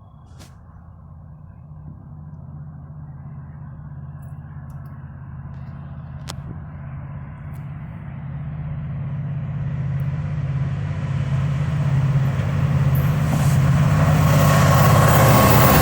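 Diesel locomotives of a Norfolk Southern freight train approaching, the low engine drone growing steadily louder, with wheel-on-rail noise building up strongly near the end as the train draws close.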